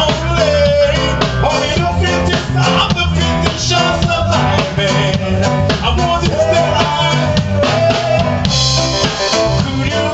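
Live band playing: a male vocalist singing a wavering melody over electric bass guitar, keyboard and a drum kit keeping a steady beat.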